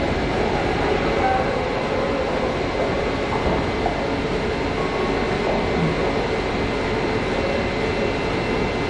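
Steady city background noise: a continuous din of traffic and street activity, with no clear single event.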